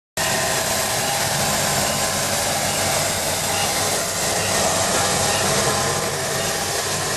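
Steady turbine whine and rush from a parked Embraer 190 jet airliner, an even noise with a few held tones above it.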